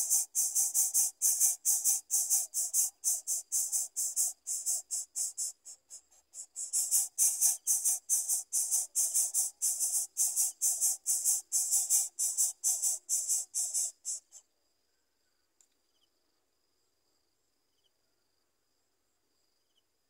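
Yellow-vented bulbul nestlings begging: rapid, shrill chirps about three or four a second, with a brief break about six seconds in. The calling stops abruptly about fourteen seconds in.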